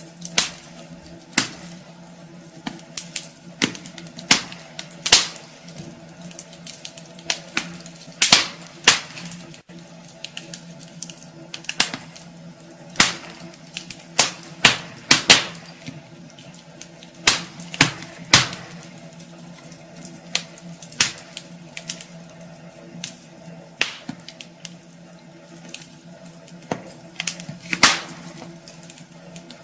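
Wood fire crackling in a fireplace: irregular sharp pops and snaps from the burning logs, some louder than others, over a faint steady hiss and hum.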